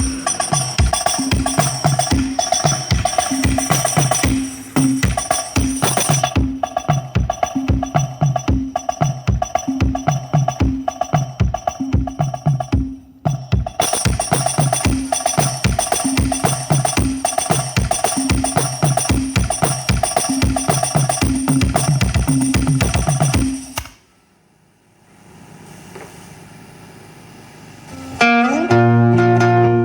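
Music with a steady, loud drum beat played through a JBL PA sound system. It drops out briefly about halfway and stops a few seconds before the end, when a different piece with plucked string notes starts.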